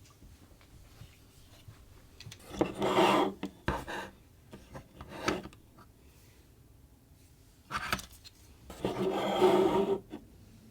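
Hands handling a boxed action figure: rubbing and scraping of packaging and plastic, in two longer bursts about two and a half seconds in and near the end, with a few short scrapes between.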